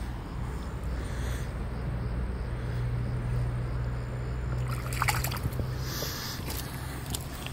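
Shallow water sloshing and splashing as a hand lets a small chub go, with a few short splashes about five to six seconds in, over a steady low hum.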